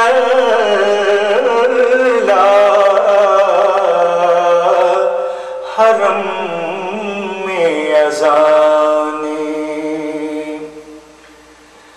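A solo voice singing an Urdu naat, unaccompanied, drawing out long held notes that slowly bend in pitch. It fades away about two-thirds of the way through and stays quiet near the end.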